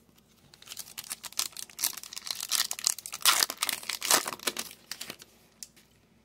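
A 2023 Topps Chrome baseball card pack's wrapper crinkling and tearing as it is pulled open by hand. The crackling is loudest about three to four seconds in and stops about five seconds in.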